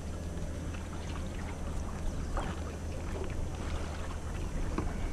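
Wind and water going past a small sailing boat, a steady rush with a low rumble, and scattered short bird calls.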